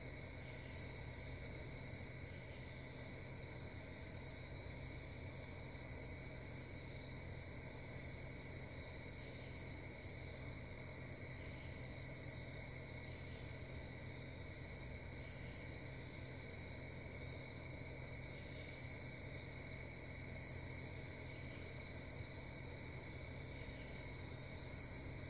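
Steady chorus of crickets trilling without a break, over a low steady hum, with a faint high tick every few seconds.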